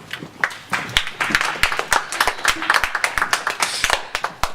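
A group of people clapping: a few seconds of dense, irregular applause that stops abruptly near the end.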